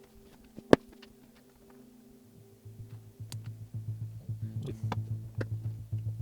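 Background music: low held notes, then a pulsing bass beat that comes in about two and a half seconds in and grows louder. A few sharp clicks cut across it, the loudest about a second in.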